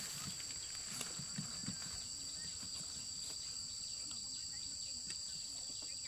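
Insects trilling steadily at two high pitches, with a few faint soft knocks in the first two seconds.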